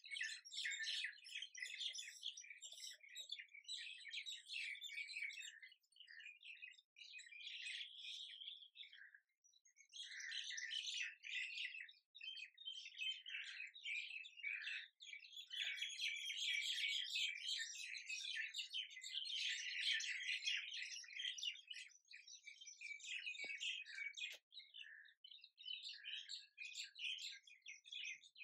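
Small birds chirping continuously in a dense chorus of short, high calls, with a brief lull about nine seconds in.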